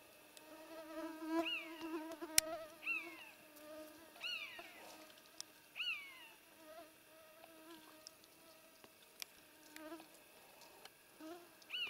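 Short, high, squeaky roe deer 'fiep' calls, each falling in pitch. About five come in quick succession, then there is a pause and one more near the end. A faint steady whine runs underneath.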